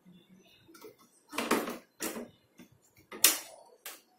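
Plastic knocks, clicks and scrapes as the filter of a Geek Ikuku A2 air purifier is pushed and seated into its plastic housing by hand: several sharp knocks at uneven intervals, the loudest about three seconds in, with soft rubbing between.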